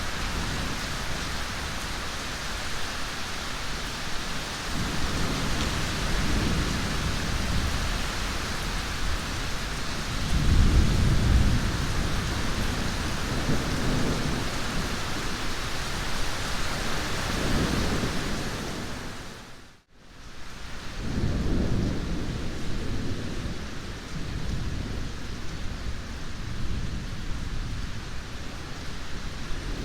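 Steady heavy rain with low rolling thunder rumbling several times, the loudest rumble about a third of the way in. About two-thirds of the way through, the whole sound fades out for a moment and comes back with another rumble.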